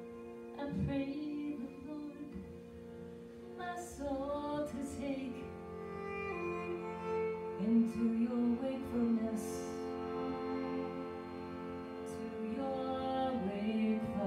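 Devotional kirtan music played live: a steady harmonium drone under a bowed cello melody, with a woman singing.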